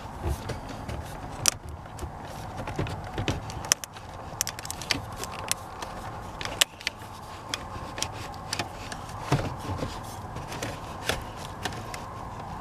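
Scattered clicks, knocks and scraping of a double-DIN car stereo being pushed and worked into a trimmed dashboard opening until it seats.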